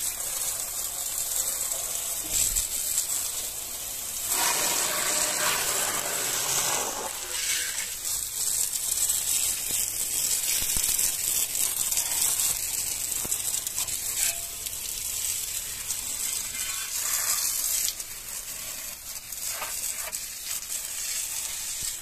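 Water jet from a handheld pressure spray gun hissing and spattering as it sprays a motorcycle's frame, exhaust, wheel and the wet ground. The spray sounds fuller and louder for a few seconds starting about four seconds in.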